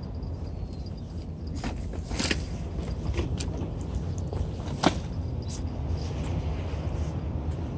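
Steady low outdoor rumble with a few sharp, scattered clicks or taps, the loudest about five seconds in.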